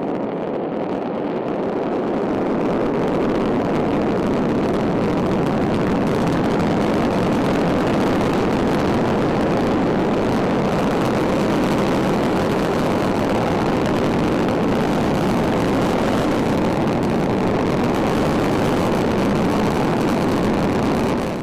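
Long March 6A rocket's engines at liftoff and during the climb: a loud, steady rushing rumble with no change in pitch.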